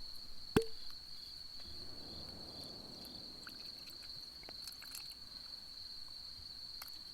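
Crickets trilling steadily in one high, unbroken tone. About half a second in there is a single sharp clink with a short ring, then a soft hiss of liquid being poured for about two seconds, as balsamic vinegar is measured out.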